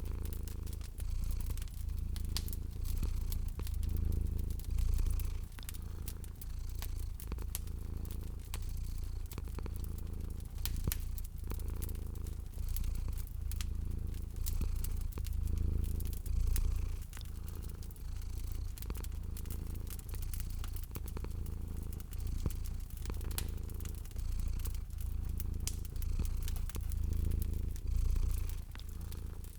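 Domestic cat purring, a low rumble that swells and eases every second or two, over the crackle of a wood fire with scattered sharp pops.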